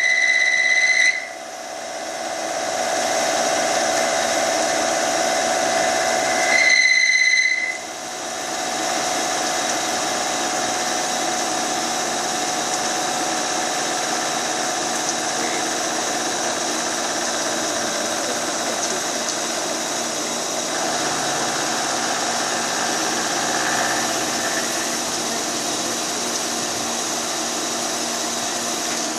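JMY series CNC turning-milling center running a machining cycle: steady cutting and spindle noise. A high, steady whine is heard briefly at the start and again for about a second some seven seconds in.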